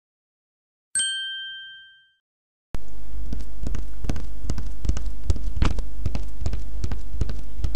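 A single bell-like ding that rings out and fades over about a second. Then a loud, steady rumbling noise full of irregular clicks and ticks starts abruptly.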